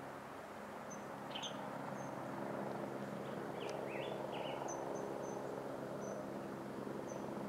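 Distant military helicopter in flight: a steady hum of rotor and turbine that grows a little louder after the first second or two. Small birds chirp briefly over it a few times.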